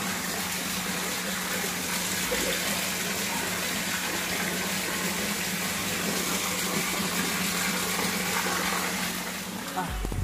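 Steady rush of water running into a fish pond, with a steady low hum under it; both cut off just before the end.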